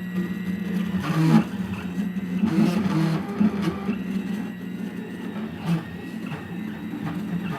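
Stepper motors of a CNC router driving its axes: a steady motor hum that shifts pitch in steps as the moves change speed and direction, with a couple of short knocks.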